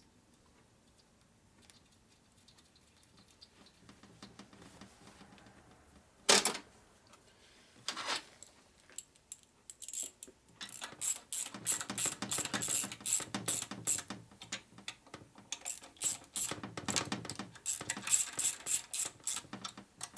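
Hand ratchet with a socket extension clicking in rapid runs as nuts are run down and tightened on a Harley knucklehead engine case, after two sharp clatters of tools being handled about six and eight seconds in.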